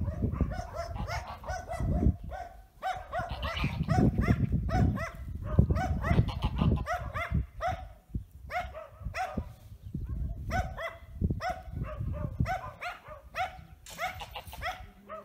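A dog barking over and over, about two barks a second, over a low rumble.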